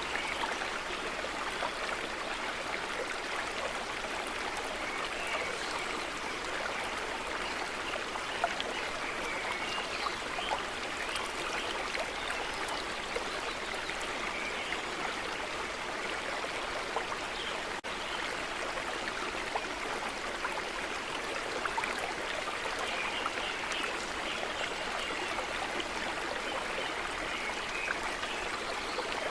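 A stream running steadily: continuous rushing and trickling water.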